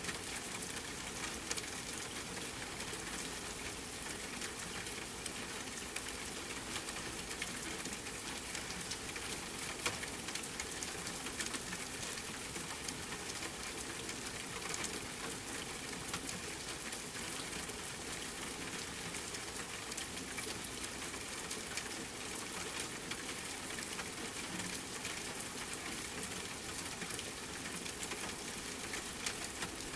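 Steady rain with a wood fire crackling, scattered sharp pops and ticks over an even hiss.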